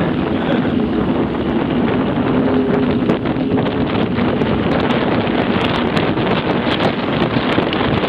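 Steady wind buffeting on an action camera's microphone while riding a mountain bike on a paved road, with tyre noise and short clicks and rattles from the bike.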